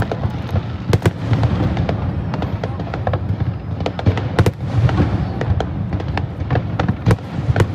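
Fireworks display: a rapid, irregular run of sharp bangs and cracks from bursting shells, several a second, over a continuous low rumble.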